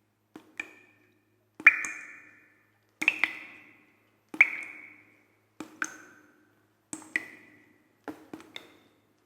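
A slow series of about seven sharp struck notes, most of them quick double taps, each ringing briefly at a different bright pitch, like a simple tune picked out on a small percussion instrument.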